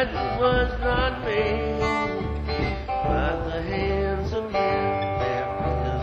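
Acoustic guitar music playing, a stretch of a song without words.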